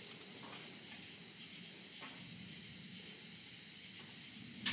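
Crickets chirring in a steady, high-pitched drone, with one sharp click near the end.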